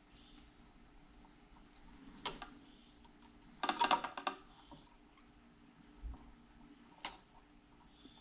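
Hand tools and stripped copper wire being handled while the wire end is bent into a hook: light clicks and rattles with a louder cluster about four seconds in, and short high squeaks repeating every second or so.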